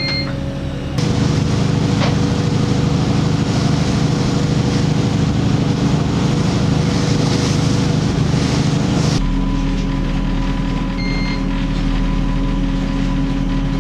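Fishing boat's engine running loudly and steadily, a dense rumble with a low drone. About nine seconds in it cuts to a quieter steady electrical hum with a thin whine and one short electronic beep.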